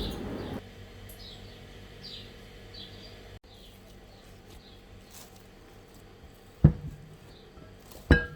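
A small bird chirping repeatedly in the background, short high chirps that fall in pitch. Two sharp thumps, the loudest sounds, come near the end, about a second and a half apart.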